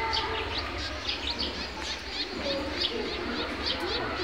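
Small birds chirping over and over, short high downward chirps about three or four a second, over a low rumble.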